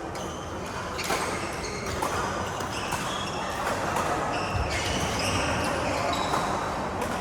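Badminton rally: rackets hitting the shuttlecock in sharp clicks, and court shoes squeaking on the floor, over a steady background din.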